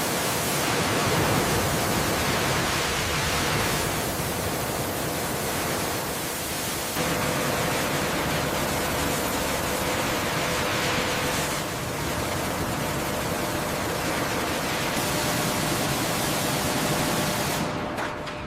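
High-pressure water spray hissing steadily from a hose nozzle. The spray changes character at several points, and a faint steady tone joins it partway through.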